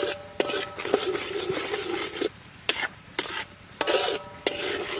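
Metal spatula scraping and tapping around a wok while stirring minced aromatics in oil. A long scrape runs for the first two seconds, a few sharp taps follow, and another scrape comes near the end.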